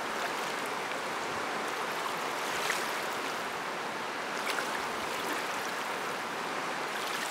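Rushing river water: a steady wash of fast-flowing whitewater over rocks, with a few faint splashes.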